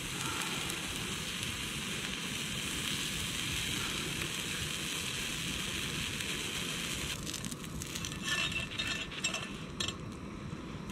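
Drop scone batter sizzling on an antique cast iron griddle plate. From about seven seconds in, a metal spatula scrapes and clicks against the griddle as the scone is worked loose and lifted.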